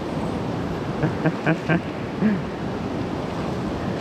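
Steady rushing of a shallow, rocky mountain river. About a second in, a few short voice sounds cut through, with one more shortly after.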